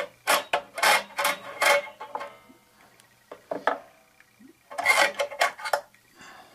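Steel mainspring and spring guide of a Crosman Storm XT spring-piston air rifle being pulled out of its compression tube and laid down: metal scraping and clinking in several short bursts, with a pause in the middle.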